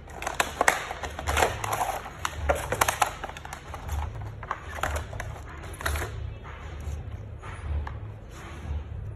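A hardcover children's board book being handled: a busy run of clicks, taps and rustles as it is turned over and opened, growing softer after about six seconds. A steady low hum runs underneath.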